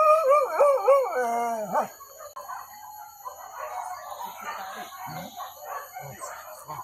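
A hunting dog howling with a wavering, bending pitch for about two seconds, then fainter, broken sounds to the end.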